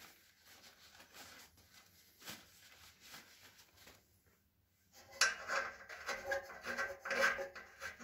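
Handling of the small bolt from the top of a radiator valve while it is wiped clean with a paper tissue: faint rubbing and a few light clicks, then busier rubbing over the last three seconds.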